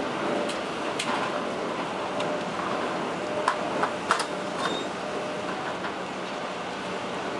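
Steady mechanical noise of a concrete mixer ship's plant while its placing boom pours concrete, with scattered sharp clinks and knocks, several close together about halfway through.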